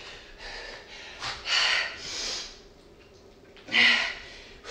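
A woman's hard, forceful breaths from exertion: a few sharp, hissing exhales, the loudest near the end with a slight voiced grunt in it.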